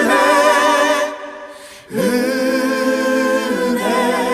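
Voices singing a Korean worship song, holding long notes with vibrato and little or no accompaniment. The singing fades about a second in, and a new held phrase begins about two seconds in.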